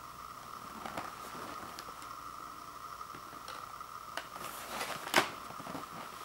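A cardboard Ritz cracker box handled and turned over in the hands: light scattered taps and scrapes of fingers on the cardboard, with one sharper knock about five seconds in.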